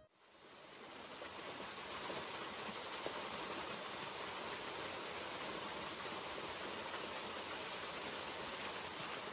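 Small waterfall pouring over rocks: a steady rush of water that fades in over the first second or two.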